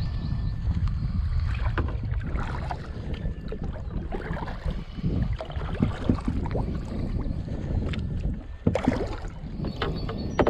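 Steady low rumble of wind and water against the microphone aboard a small fishing boat, with scattered knocks from the boat and gear, loudest in a cluster about nine seconds in.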